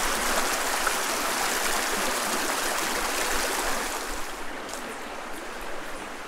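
Small canyon creek running over its stony bed, a steady rush of water that gets quieter about four seconds in.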